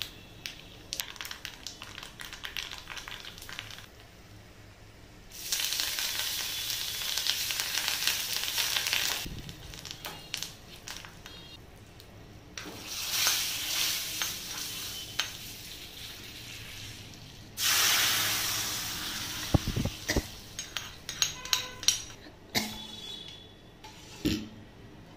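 Hot oil tempering of mustard seeds, dried red chillies and turmeric sizzling in three loud spells, as the sizzling tempering is poured into the pot of rasam. Light clicks of a spoon against the pan and the steel pot come between the spells and more thickly near the end, as the rasam is stirred.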